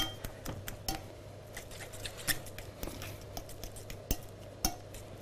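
A metal fork mashing boiled potatoes and beetroot in an enamelled cast-iron pot: quiet, irregular clicks and scrapes of metal on enamel, about two or three a second.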